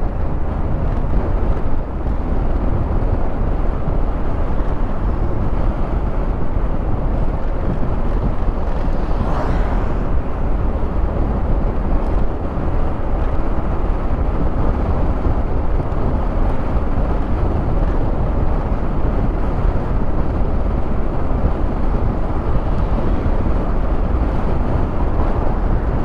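Steady wind rush on the microphone over the low rumble of a Honda Forza 350 scooter riding at road speed, with a brief louder hiss about ten seconds in.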